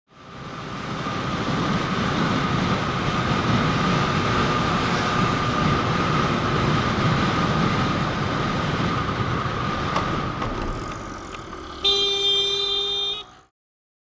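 Wind rush and engine noise of a motorbike being ridden along a street, heard from a helmet-mounted camera. Near the end a vehicle horn blows once for just over a second, the loudest sound, and then the sound cuts off abruptly.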